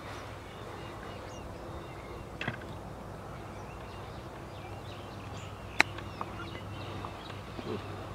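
A single sharp click of a golf club striking the ball on a short chip shot, about six seconds in, over a background of birds chirping.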